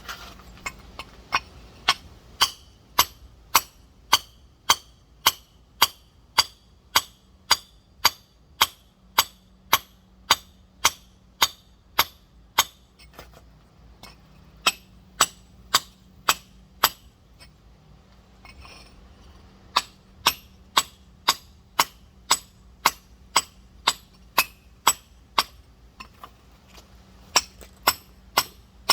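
Rock hammer tapping on a giant geode to crack it open: sharp, clinking strikes at about two a second, in runs broken by a few short pauses.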